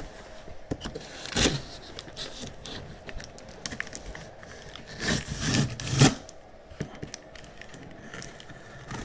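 Handling noises: scraping and rustling with a sharp knock about a second and a half in and a cluster of knocks around five to six seconds in.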